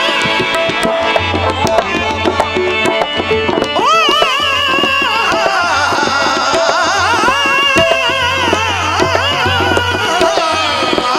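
Live folk music on harmonium and dholak drum: sustained harmonium tones under steady drum strokes, joined from about four seconds in by a man singing long, heavily ornamented, wavering phrases.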